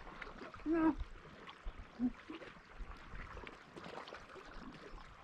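Faint water and small scattered clicks and knocks, with a short pitched voice-like sound about a second in and a briefer one near two seconds.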